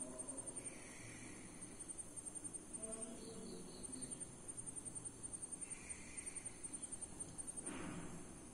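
Insect chirping: trains of rapid, high-pitched pulses repeating through the quiet, with a brief soft rustle near the end.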